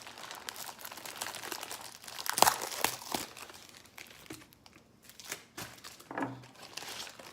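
Packing material being crinkled and torn by hand as a well-packed item is unwrapped: dense crackling for the first few seconds, loudest about halfway through, then a few scattered rustles.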